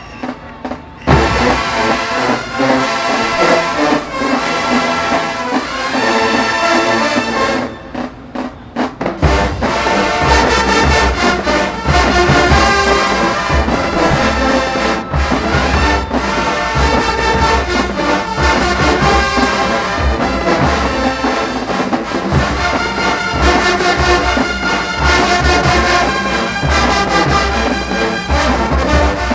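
Marching band brass section playing loudly in a halftime show. About eight seconds in the music breaks off briefly, then the full band comes back in with a much heavier low end under the brass.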